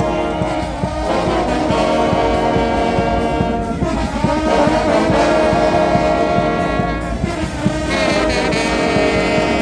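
Mummers band playing live, with horns holding loud sustained chords over a steady beat.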